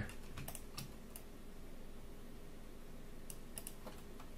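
Faint scattered clicks of a computer keyboard and mouse, a few in the first second and a few more past three seconds, over a faint steady hum.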